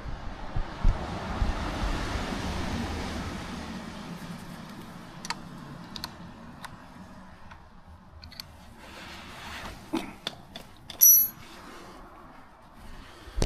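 Workshop handling noise: a rushing sound and low knocks at first, then scattered small metallic clicks and clinks. About 11 seconds in, one louder clink rings briefly, like a small metal tool or part being set down.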